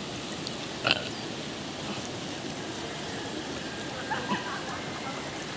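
Steady rush of river water over the rocks, with a brief sharp sound about a second in and a faint voice near the end.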